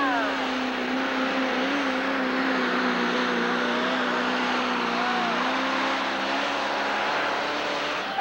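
Pro Stock pulling tractor's turbocharged diesel engine running flat out under load as it drags the weight-transfer sled, a loud steady drone that sags a little in pitch and eases off near the end.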